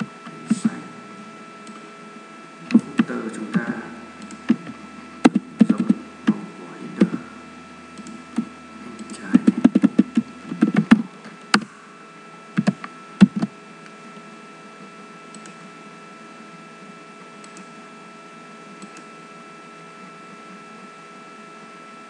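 Computer keyboard typing in irregular bursts of clicks for about the first thirteen seconds, then only a steady electrical hum.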